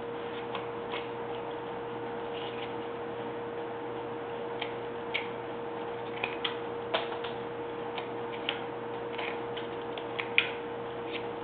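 Carving knife cutting chips off a block of wood: a scatter of small, irregular clicks and snaps, the sharpest about ten seconds in, over a steady low hum.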